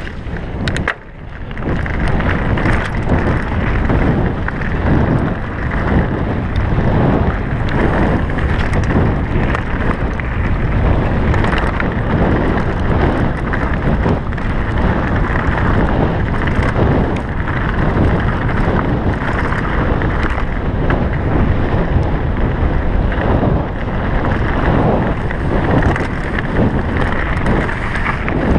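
Wind buffeting the microphone of a point-of-view camera on a mountain bike riding downhill at speed, with the tyres rumbling over a dirt trail and the bike knocking and rattling over bumps. A brief lull about a second in, then steady and loud.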